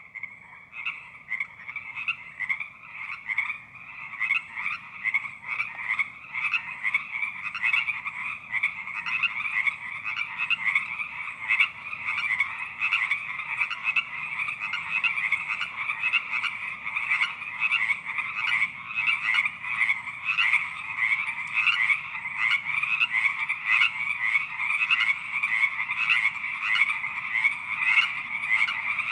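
A chorus of toads and frogs croaking, many overlapping calls repeating rapidly without a break, growing louder over the first several seconds.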